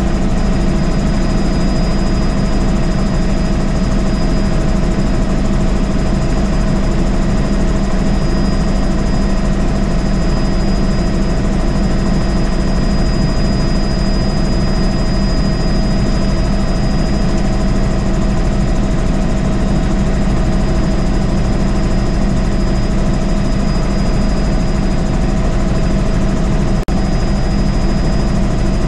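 Helicopter in flight heard from inside the cabin: steady engine and rotor drone with a thin high whine on top. It briefly drops out once near the end.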